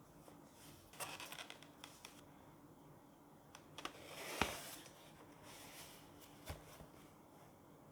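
Handling noises of a mechanical keyboard and its packaging: a quick run of light clicks about a second in, a rustle that swells and ends in one sharp click midway, and a single knock later.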